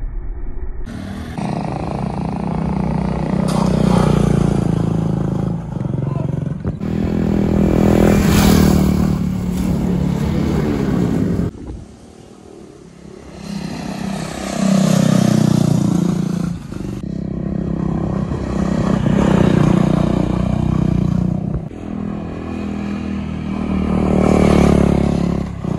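Sport motorcycles passing one after another through a tight corner, about five passes. Each engine swells as it comes through, with its pitch rising and falling as the rider revs and eases off.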